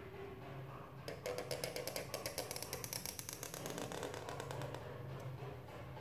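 Background music with a quick, even percussive beat over a steady low bass note. The beat is strongest from about a second in until past the middle.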